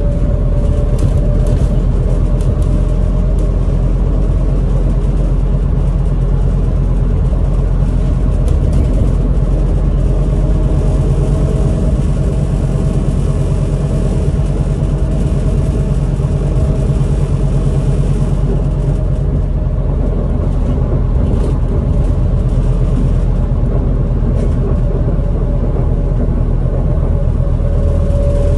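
Inside a Scania Citywide articulated bus under way: steady engine and drivetrain drone with a whine held at one pitch, road rumble, and light rattles now and then.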